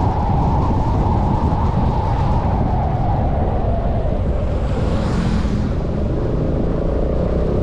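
Honda SH300 scooter's engine running under way with wind and road rumble; its whine falls as it eases off over the first few seconds and begins to rise again near the end. About five seconds in, an oncoming motorcycle passes with a brief rushing hiss.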